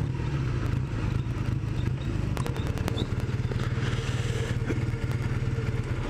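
Kawasaki 440 LTD's parallel-twin engine running at low revs, a steady low pulsing beat, with a few sharp clicks and rattles about two and a half to three seconds in.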